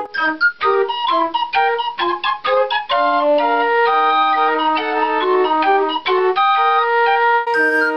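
Homemade pipe organ, the Callioforte, built mostly from plumbing parts and wire, played from its keyboard: a quick tune of flute-like pipe notes, short notes moving over longer held ones.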